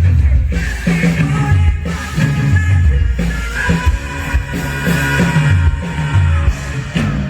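Loud live rock music: a full band with drum kit and a low bass line moving between notes, with sustained higher instrument tones above.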